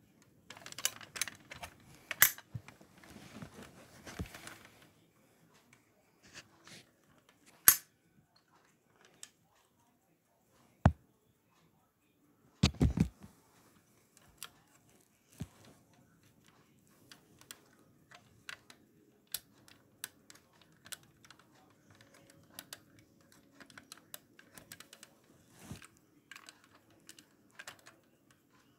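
Handling noise from a diecast model car being turned over and moved about on a cloth: scattered light clicks and taps with rustling, and a few louder sharp knocks, the first about a third of the way in and a cluster a little before the middle.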